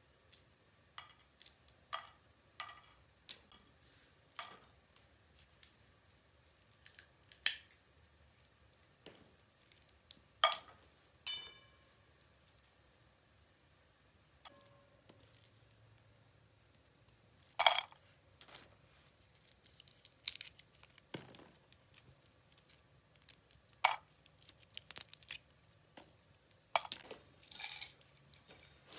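Walnuts being shelled by hand: scattered sharp cracks and clicks of shell breaking, with light clinks of pieces dropping into a metal bowl, one ringing briefly about ten seconds in. The clicks come more often near the end.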